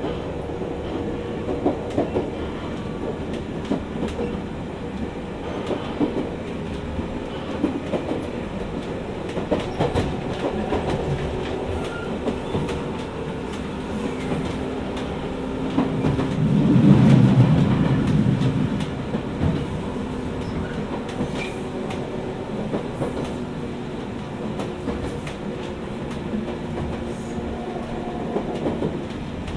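Jomo Electric Railway 700 series electric train (a former Keio 3000 series car) running between stations: wheels clacking over rail joints above a steady running hum, swelling louder for a few seconds a little past halfway.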